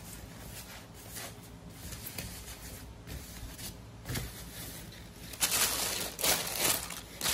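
Yamaha-printed plastic parts bag crinkling as it is handled, faint and scattered at first, then loud, irregular rustling from about five seconds in.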